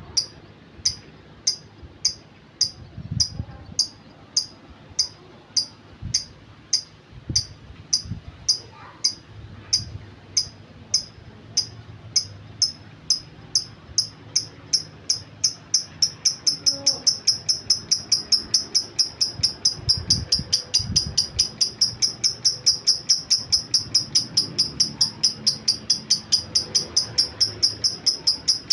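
Lovebird giving its long 'ngetik' ticking call: a steady string of short, sharp, high chirps, about two a second, quickening to about three a second a little past halfway.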